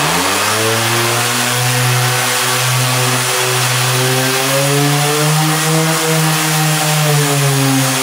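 Ridgid 5-inch random orbit sander with a permanent-magnet motor switched on at its lowest speed setting. It finishes spinning up, its pitch climbing just at the start, then runs as a steady hum over a hiss, its pitch wavering slightly midway.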